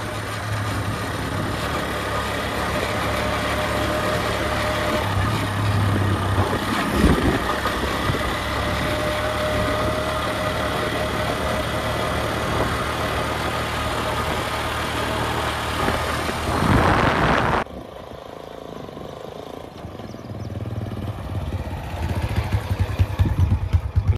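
Heavy diesel engine running steadily under load with a faint whine and a knock about seven seconds in. About three-quarters of the way through it surges, then drops abruptly to a quieter engine sound that builds and pulses again near the end.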